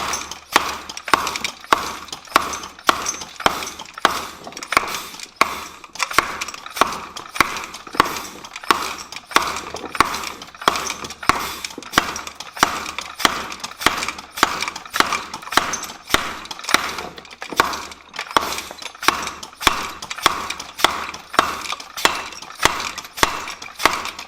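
Treadle hammer striking a large piece of hot steel in a steady rhythm of about two blows a second, each blow ringing briefly.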